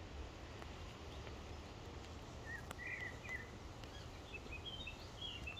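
Small birds chirping in short twittering phrases several times in the second half, over a faint steady low rumble of outdoor background noise.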